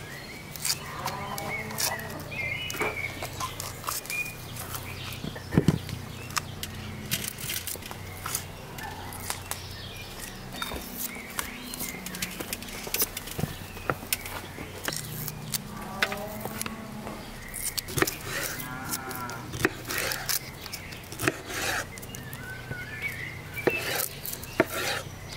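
Cattle mooing several times in long, low calls, over sharp taps of a knife on a wooden cutting board.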